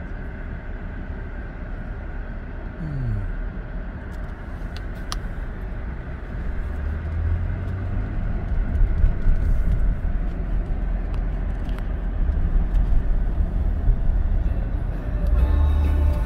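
Car cabin noise while driving: a steady low engine and road rumble that grows louder from about six seconds in.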